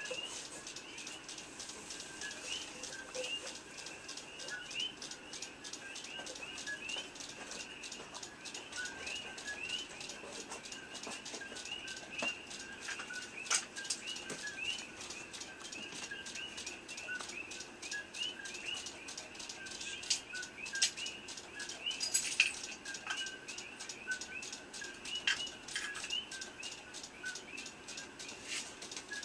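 A small bird chirping steadily, short high chirps several times a second, over a fast faint ticking, with a couple of sharper clicks.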